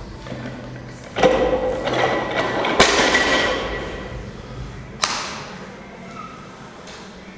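A deadlift barbell loaded with 220 kg of rubber bumper plates thudding down on the gym floor: three heavy impacts about one, three and five seconds in, each ringing on briefly after it.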